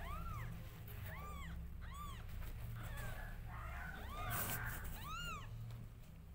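Two-day-old newborn kittens mewing: about five short, high squeaks, each rising and falling in pitch.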